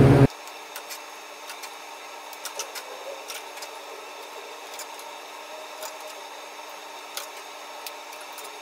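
Light, scattered metallic clicks as steel extension springs are hooked onto a steel bar, over a steady low hum. A loud noise cuts off just after the start.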